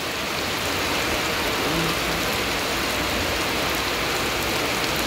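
Steady rain falling on wet grass and a shallow muddy puddle, a continuous even hiss of drops that keeps on without a break.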